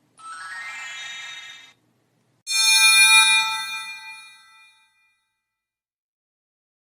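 Two magical sound effects: first a soft, sparkling run of chime tones rising in pitch for about a second and a half, then a bright bell-like chime struck once that rings and fades away over about two seconds.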